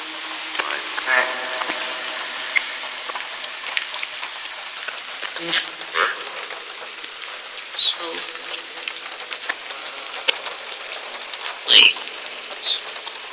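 Echovox ghost-box app on a phone, played through a small round Bluetooth speaker: a steady hiss of noise broken every few seconds by short, garbled voice fragments.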